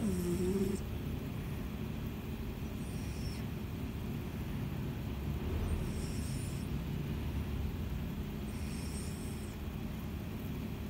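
Sleeping cat snoring: a short, soft whistling hiss of breath about every three seconds, over a steady low rumble.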